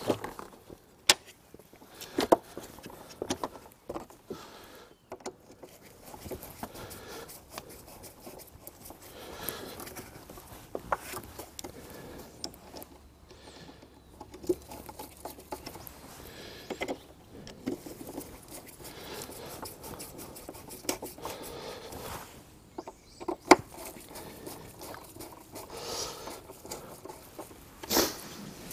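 Irregular clicks, taps and knocks of hard plastic as gloved hands work the air filter housing and its latch in a car's engine bay, with faint handling noise in between and a few sharper knocks, the loudest near the end.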